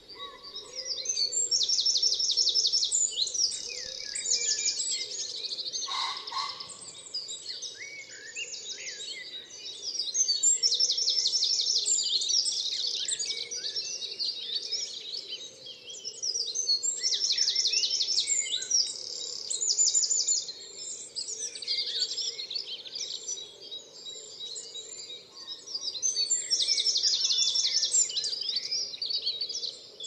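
Songbirds singing in the open, with song phrases and fast trills coming every few seconds over a steady low background hum.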